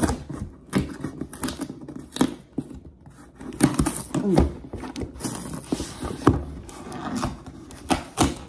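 Cardboard shipping box being handled and torn open: irregular knocks and scrapes of the box against a stone countertop, with rustling and tearing of cardboard and packing tape.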